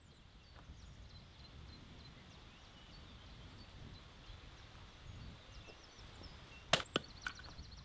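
Small birds chirping over a faint outdoor rumble, then near the end an axe strikes a log on a wooden chopping block: one sharp crack followed quickly by two smaller knocks.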